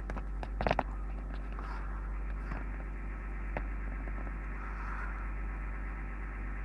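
Servis Gem M310 washing machine running early in a Cottons 95 cycle with prewash: a steady low wash noise over a mains hum, with a sharp click under a second in and a fainter one a few seconds later.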